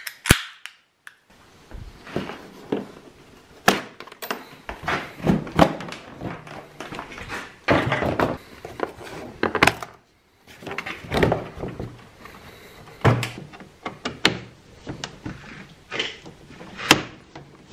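Irregular knocks, clunks and clicks of hands and a hand tool working on an Arctic Cat snowmobile's plastic body panels and their fasteners. One sharp click comes just after the start, and there is a brief break about ten seconds in.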